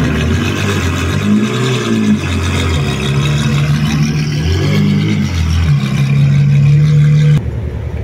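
Ferrari supercar engine revving in several short blips as the car pulls away, the pitch climbing and holding high toward the end before cutting off suddenly; a quieter engine idles after the cut.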